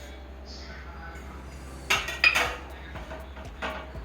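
Metal pot and lid clanking as the sealed dum biryani pot is uncovered: two sharp ringing clanks about two seconds in, then a lighter one near the end.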